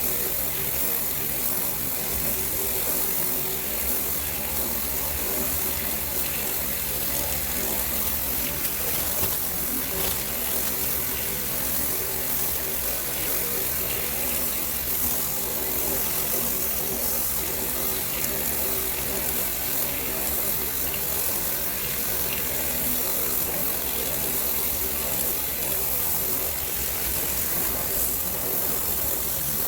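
Steady, unbroken hissing noise with a faint steady hum underneath.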